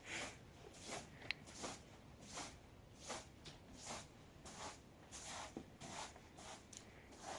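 Faint, even run of short rasping strokes, about two a second.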